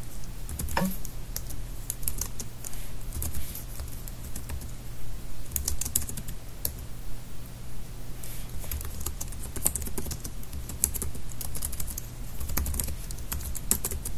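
Typing on a computer keyboard in short bursts of clicking keystrokes with pauses between them, over a steady low hum.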